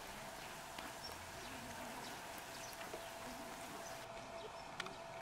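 Faint outdoor ambience: a steady background hiss with a faint steady tone, and scattered small clicks and taps, one sharper click near the end.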